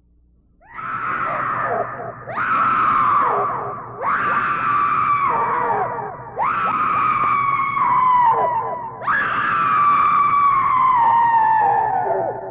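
Five long, high-pitched screams one after another, each starting high and sliding down in pitch, the last one the longest: a haunted-house scream sound effect.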